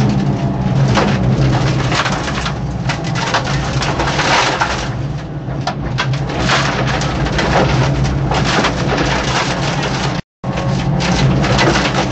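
Inside a Peugeot 205 1.9 rally car at speed on a stage: its 1.9-litre four-cylinder engine is working hard under a constant crackling and rattling of road noise and stones hitting the body. About ten seconds in, the sound drops out completely for a split second.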